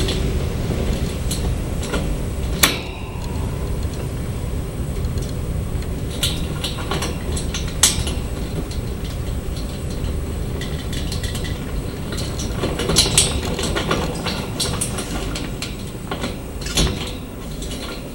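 Camera dolly rolling along its track: a steady low rumble with scattered clicks and knocks.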